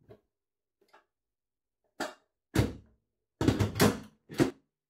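Plastic lid of a Philips All-in-One electric pressure cooker being worked by its newly refitted handle: a series of knocks and clunks, faint at first, then louder, with several close together about three and a half seconds in.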